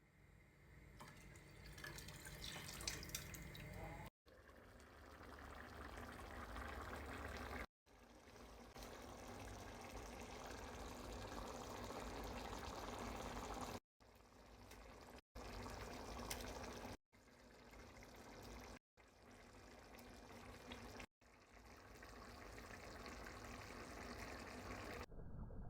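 Faint water running and pouring in a kitchen, heard as a string of short cuts that each fade in and build.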